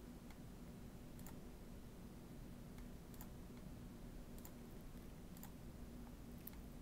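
Faint, scattered clicks, about one a second, over a low steady hum.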